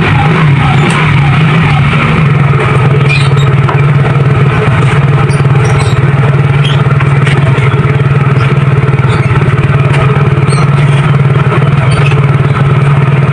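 Motorcycle engine running at a steady idle.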